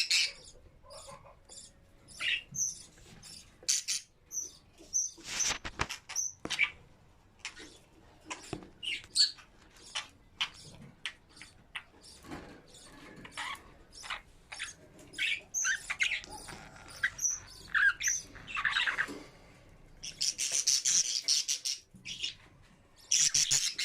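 Budgerigars chirping: many short, high chirps scattered through, mixed with small clicks, with a busier stretch of chirping near the end.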